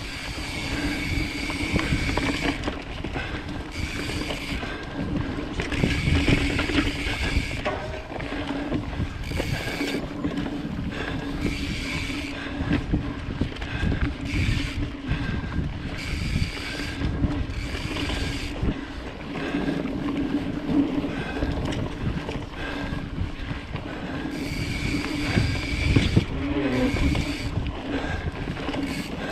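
Mountain bike riding fast along a dirt forest singletrack: wind rushing over the microphone mixed with tyre and drivetrain noise, with higher hiss cutting in and out every second or two. It gets louder for a moment near the end as the bike rolls onto a wooden plank bridge.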